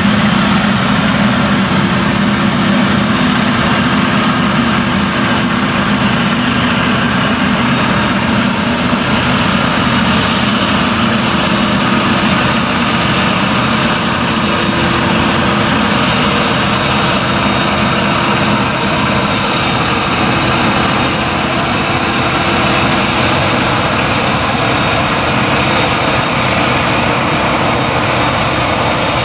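Claas Jaguar 970 forage harvester's V8 engine and chopper running steadily under load as it chops tall sorghum, mixed with the engine of the tractor hauling the trailer alongside.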